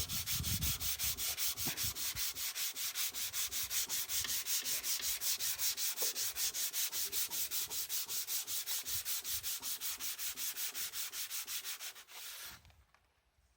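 Rapid back-and-forth sanding strokes, about seven a second, scraping rust off the Simson Schwalbe's metal bodywork; the strokes stop near the end.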